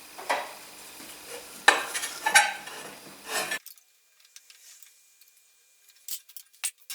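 Sharp clinks and knocks of wood and metal being handled in a workshop, the loudest about two seconds in. After that it drops to near quiet with a few light clicks.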